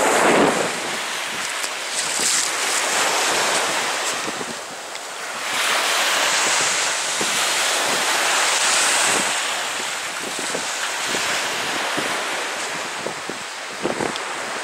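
Waves washing onto a beach, with wind buffeting the microphone. The wash swells and eases every few seconds.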